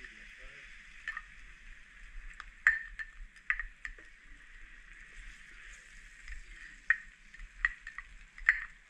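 Chopped aromatics frying in oil in a steel pan, a steady sizzle, as sauce is spooned in. A spoon knocks sharply against the cup and pan about six times.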